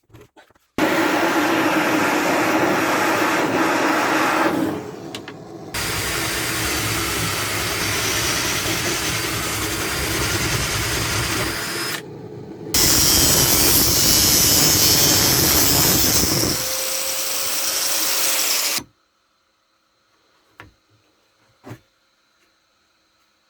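A power tool running in three long stretches, each starting and stopping abruptly, followed by a few faint clicks.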